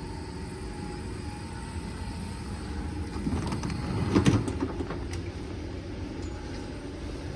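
Zurich Tram 2000 (Be 4/6) standing at a stop, its on-board equipment humming steadily, with a short cluster of clunks and clicks about halfway through.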